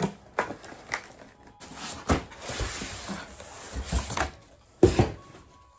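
Cardboard box being opened by hand: scattered knocks and scrapes, a stretch of tearing noise from about two seconds in lasting about a second and a half, and the loudest knock near the end.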